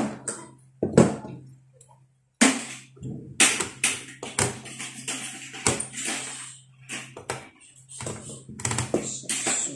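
Pliers and metal parts clicking and knocking against an open power-amplifier chassis as it is taken apart: a string of sharp, irregular taps with a short gap about two seconds in, over a faint low steady hum.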